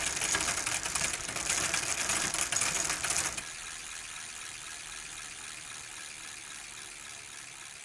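Rapid mechanical clicking and rattling, loud for about the first three seconds, then dropping to a quieter steady hiss.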